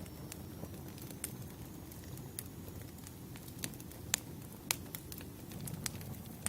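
Wood fire crackling: scattered sharp pops and snaps over a low, steady rumble of burning logs.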